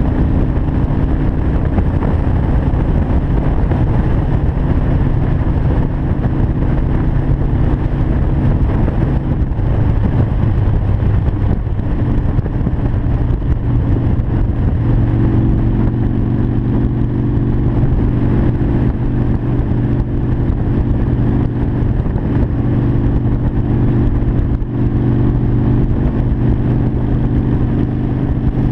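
Harley-Davidson Sportster 1200 Custom's air-cooled V-twin engine running steadily at cruising speed, heard from on board the motorcycle. Its note shifts slightly about halfway through.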